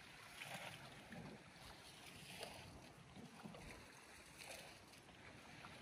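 Faint water lapping, with about five soft splashes roughly a second apart over a steady hiss.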